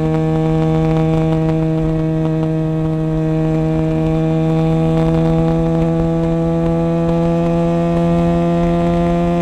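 SRK250RR sport motorcycle engine held at high revs, its steady buzzing note climbing slowly as the bike accelerates in one gear, with low wind rumble.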